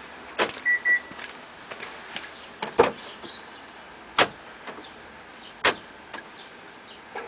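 A car's power door locks sounding: a click and two short high beeps, a heavier thump as the door opens, then the lock actuators clunking twice, a second and a half apart, as the car locks and unlocks by itself. This is the module's signal that the parked car took a knock.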